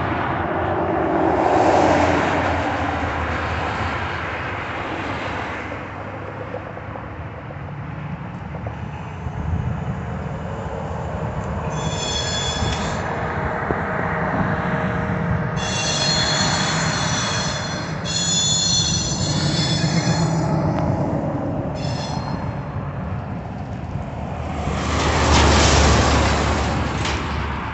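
Union Pacific diesel freight locomotive and train approaching on the tracks, with a steady low engine rumble. Several high-pitched squealing tones come and go in stretches of one to two and a half seconds in the middle. Road traffic passes loudly near the start and again near the end.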